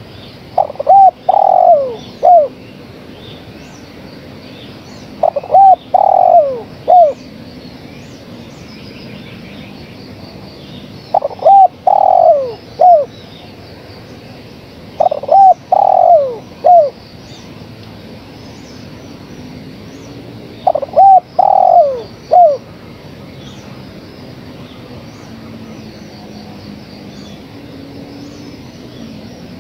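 Female spotted dove cooing: five phrases of three or four notes each, several seconds apart, each phrase ending on a falling note, with no calls in the last few seconds. Faint high chirps of small birds run underneath.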